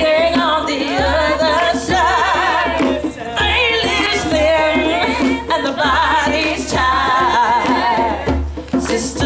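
Women's voices singing long, wavering lines with vibrato over hand-drumming on a djembe, in several phrases separated by short breaks.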